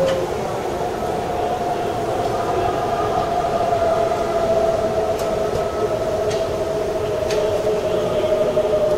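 Keikyu electric train heard from the cab: a steady electrical whine from its equipment, sliding slowly down in pitch, with a few faint clicks in the second half.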